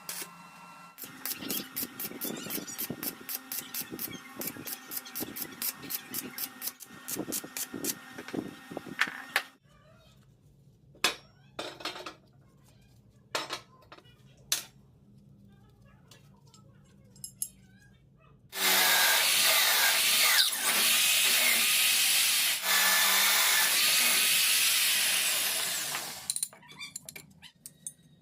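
Workshop sounds: a quick run of taps and clicks for several seconds, then a few scattered knocks, then a power tool running loudly and steadily for about seven seconds before stopping.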